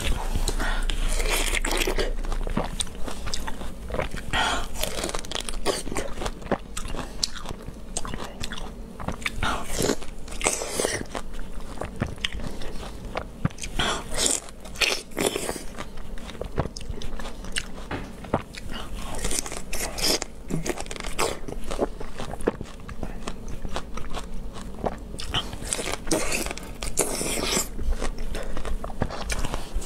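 Biting into and chewing ripe star fruit (carambola). There are crunchy bites at irregular intervals, with chewing between them.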